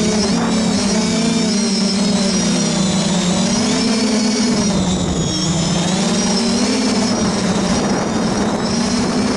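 FPV quadcopter's four Sunnysky 2212 1400Kv brushless motors spinning 8x4.5 propellers, a steady buzzing drone whose pitch wavers up and down as the throttle changes, dipping lower about five seconds in. Heard from the quadcopter's own onboard camera.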